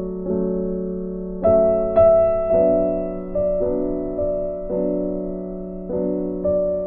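Background piano music: slow, gentle chords struck about once a second, each ringing on and fading.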